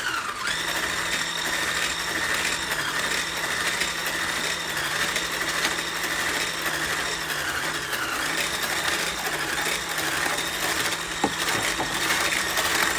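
Electric stick blender with a whisk attachment running steadily in a bowl of egg-and-sugar batter as milk is poured in, its motor pitch dipping briefly a few times.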